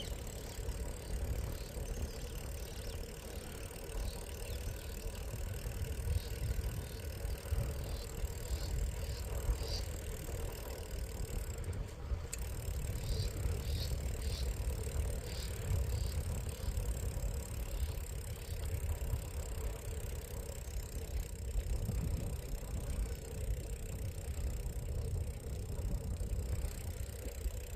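Bicycle ride noise: a steady low rumble of wind on the microphone and tyres on the road. Short high chirps come in two runs, about a third of the way in and again around halfway.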